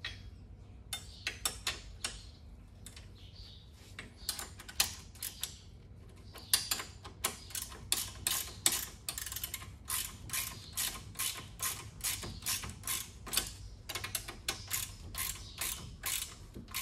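Ratcheting combination wrench clicking as it tightens a 17 mm suspension A-arm pivot bolt against its 19 mm nut. Scattered clicks at first, then a steady run of about three clicks a second from about six seconds in.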